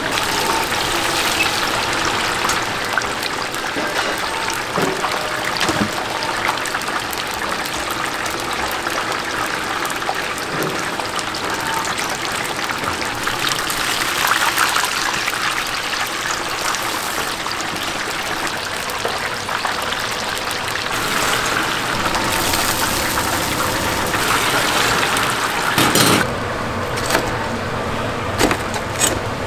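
Chicken deep-frying in hot oil: a steady sizzle and bubble, with a few sharp knocks in the last few seconds.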